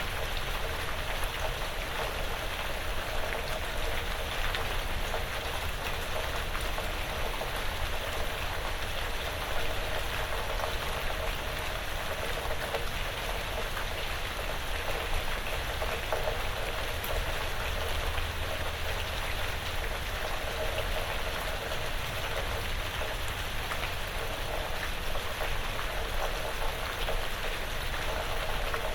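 Steady light rain falling on a porch roof and the surrounding woods, an even patter of many small drops.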